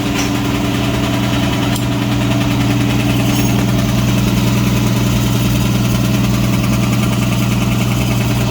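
Home-built air compressor, two two-stage piston pumps driven by electric motors, running steadily as it pumps up its tanks: an even hum with a couple of light ticks in the first few seconds.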